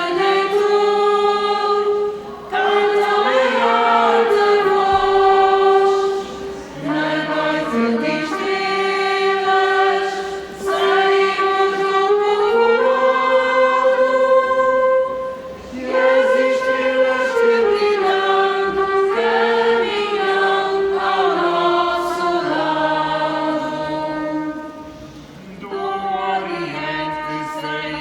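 A vocal group singing together in chorus, holding long notes in phrases with short breaks between them.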